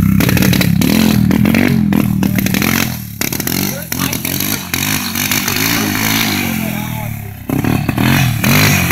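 Yamaha sport quad's engine running and revving, growing fainter about three seconds in as the ATV pulls away, then louder again near the end as it comes back.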